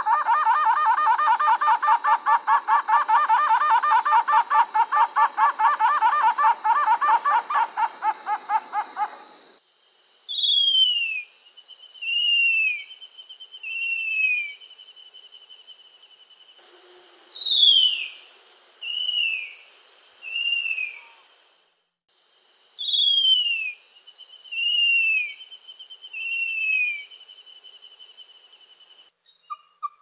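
Wild birds calling. First comes a rapid laughing series of pulsed notes that stops about nine seconds in. Then three groups of three short falling whistled notes follow, over a steady high background tone.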